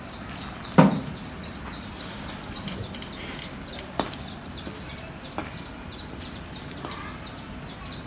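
Small birds chirping steadily in a busy, high-pitched chorus. A single sharp thump comes about a second in, then a few fainter clicks like heeled footsteps on paving stones.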